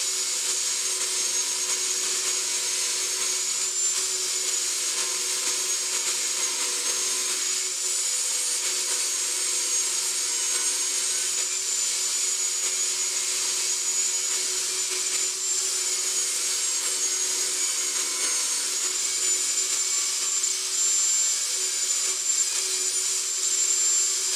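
Portable jobsite table saw running steadily with a constant high motor whine as hardwood boards are fed through the blade, ripped to width and cut to length.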